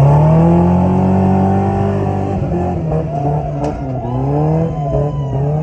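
Off-road vehicle's engine running under throttle, its pitch climbing and then dropping and rising again three or four times as the revs change.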